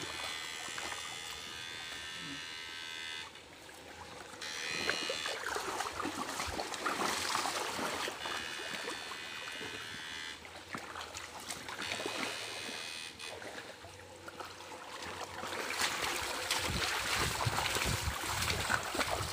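Susan 1030 electrofishing unit giving a high electrical whine that switches on and off several times, over water sloshing as it is worked through the water; a louder stretch of splashing near the end.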